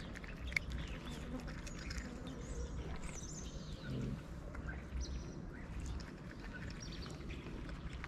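Stray cats eating, chewing and crunching dry kibble, with small scattered clicks. Birds chirp in the background, and there is a brief low sound about four seconds in.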